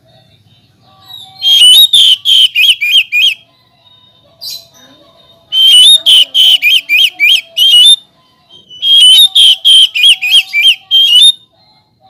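Oriental magpie-robin singing: three loud bouts of quick, repeated whistled notes, each bout about two seconds long with short pauses between.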